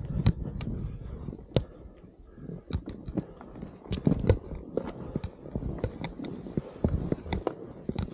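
Skis sliding and scraping over packed, groomed snow: a rough low rumble broken by many irregular clicks and knocks.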